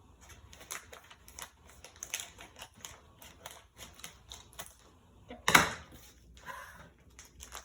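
Quick, irregular small clicks and taps of plastic toy pieces and packaging being handled while a Smashers toy pack is opened, with one louder knock or rustle about five and a half seconds in.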